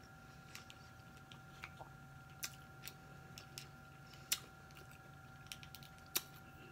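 Faint, irregular small clicks and cracks of seafood shells being picked apart by hand, the sharpest about four seconds in and again about six seconds in, over a faint steady electrical hum.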